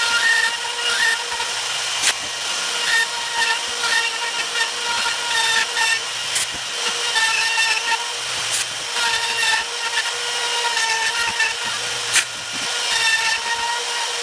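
RotoZip spiral saw running at high speed, its bit cutting a bowtie inlay recess into the corner of a wooden picture frame. It makes a steady high whine with a few sharp ticks.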